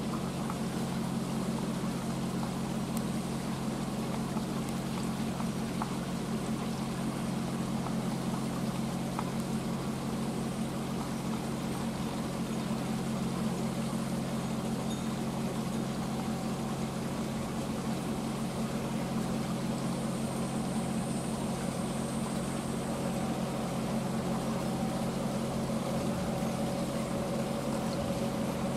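EF63 electric locomotive moving slowly, with a steady low mechanical drone of its running equipment and a fainter higher tone that grows in the last few seconds as it comes closer.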